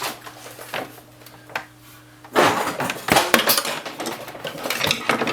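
Hard objects being handled: a few separate knocks, then from about two and a half seconds in a busy run of clattering and rattling.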